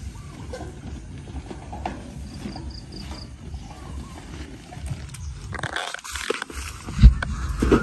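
A wheelbarrow being pushed through tall grass, its wheel rumbling and the grass rustling. Near the end a heap of rambutan fruit is tipped from a woven tray into the wheelbarrow, landing with a loud thump and a few knocks.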